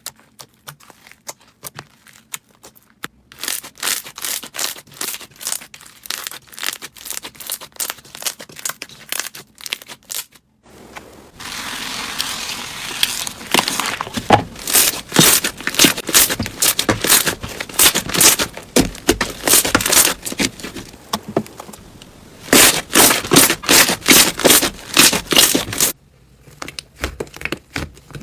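Slime being squeezed and kneaded by hand, giving off dense crackling and popping. The crackling turns louder and denser about eleven seconds in.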